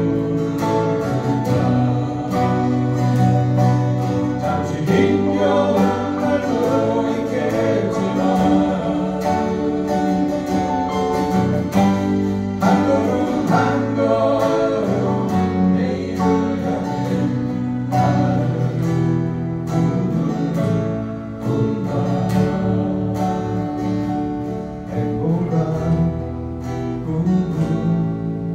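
Live acoustic band playing a song: strummed acoustic guitars, electric bass and keyboard, with voices singing along.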